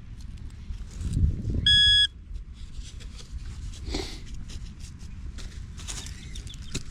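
Metal detector giving one steady, high-pitched beep lasting about half a second, about a second and a half in, sounding over a target. A low rumble comes just before it, with light clicks and rustling around.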